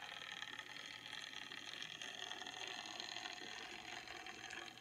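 HO scale Dockside switcher locomotive running slowly, its small electric motor and gearing giving a faint steady whir. The motor and drive have been freshly cleaned and oiled.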